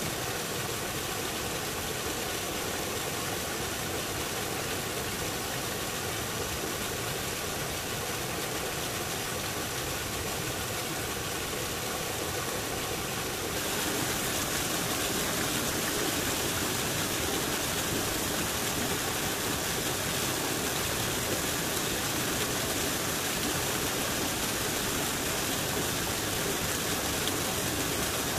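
An engine running steadily under a constant hiss, growing louder and brighter about halfway through.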